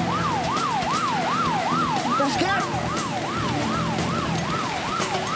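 Siren wailing in a fast yelp, its pitch sweeping up and down about three times a second.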